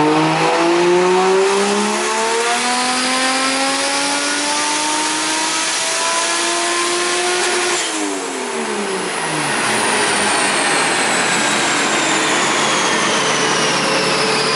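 Turbocharged Toyota 1JZ inline-six running a wide-open-throttle dyno power pull, revs climbing steadily for about eight seconds. Then the revs drop sharply as the throttle is released, and it settles back to a steady idle while a high whine falls slowly.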